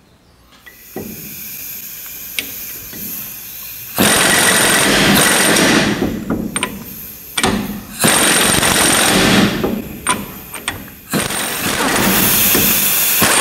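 Pneumatic impact wrench hammering in several spells of one to two seconds with short spurts between them, starting about four seconds in. It is running a nut down on the pinion of a GM 8.5 ten-bolt axle to draw the yoke onto the pinion.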